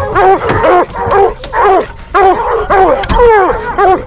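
Bear-hunting hounds barking loud and close in quick succession, about three barks a second.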